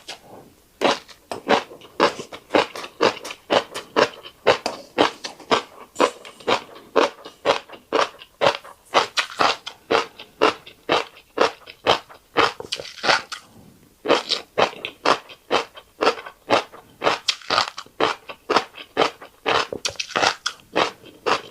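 Close-miked chewing of a fish roe and rice mouthful: rhythmic crisp crunching, about three chews a second, with a short pause about two thirds of the way through.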